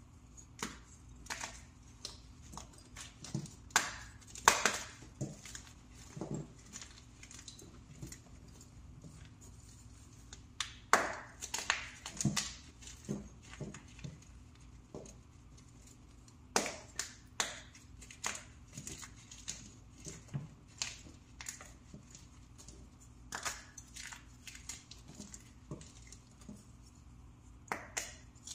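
Fresh pressed powder blocks crushed by hand, giving irregular sharp crunches and crumbles, some in quick clusters with short lulls between. The loudest are about 4, 11 and 17 seconds in.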